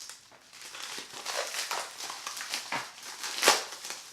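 Crinkling and rustling of a thin mailing package being torn open and handled, in irregular bursts with one louder rustle about three and a half seconds in.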